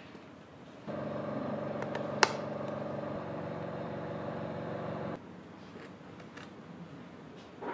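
A power tool's electric motor runs steadily for about four seconds, switching on and off abruptly, with a sharp click about two seconds in.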